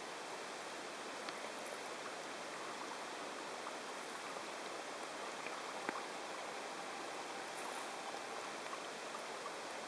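Steady rush of river water close to a canoe gliding downstream, with a few faint ticks and one sharp knock about six seconds in.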